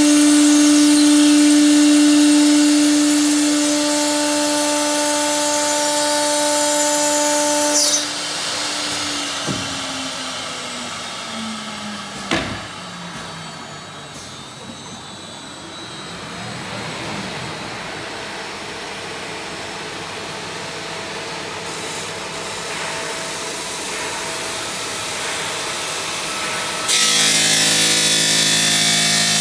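Stone CNC bridge saw running with a steady loud whine, which slides down in pitch as the blade spins down from about eight seconds in, with a sharp click along the way. Near the end the saw runs loud again with a harsh hiss.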